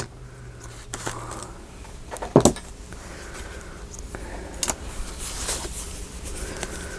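Small handling noises of craft supplies on a work table: one sharp knock about two and a half seconds in, with fainter clicks and light rustling.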